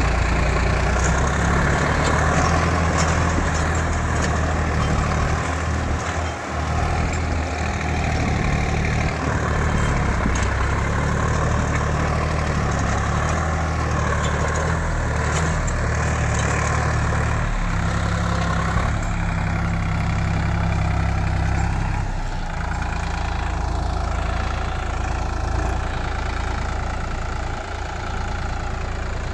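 Sonalika tractor's diesel engine running steadily as it pulls a reversible mould-board plough through the soil. The engine note changes about two-thirds of the way through.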